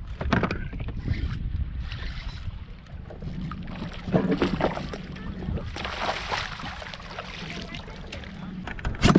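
Wind buffeting the microphone while a hooked redfish splashes and thrashes at the water's surface beside the boat, loudest about four seconds in. A sharp loud knock comes near the end.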